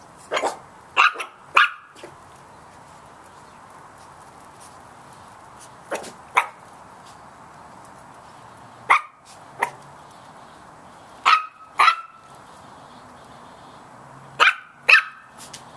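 Chihuahua puppies barking in short, high-pitched yaps: a quick run of four or five at the start, then pairs every few seconds.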